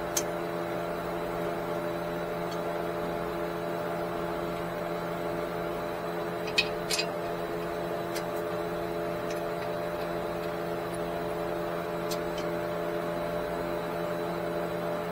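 Steady mechanical hum with several even tones, under a few brief sharp clicks of tools and parts being handled; one click a little over six seconds in stands out as the loudest.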